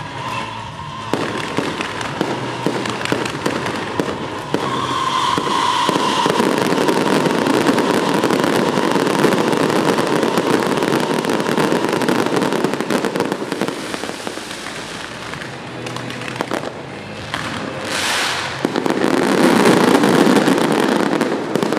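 Dense, continuous crackling of firecrackers and fireworks set off in a salute, growing louder in the last few seconds.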